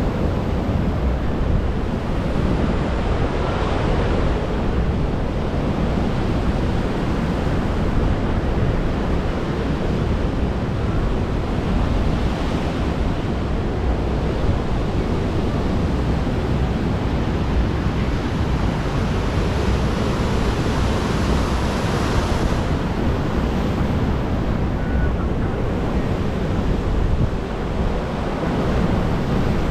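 Strong wind buffeting the microphone over sea surf, with the wash of the waves swelling up every several seconds.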